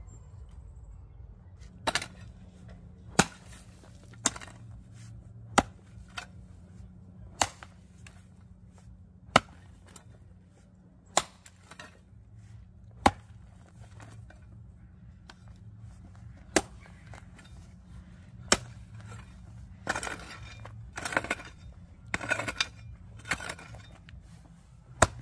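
Slow, steady chopping with a blade, single sharp blows one to two seconds apart, about a dozen in all, with rustling and scraping near the end.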